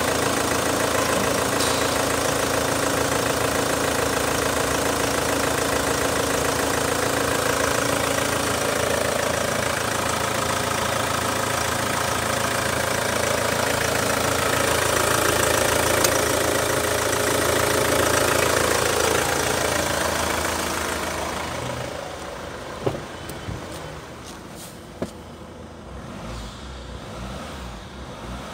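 Holden Captiva's 2.2-litre turbo diesel engine idling steadily with the bonnet open. About twenty seconds in it becomes much quieter, heard from inside the cabin, with two sharp clicks along the way.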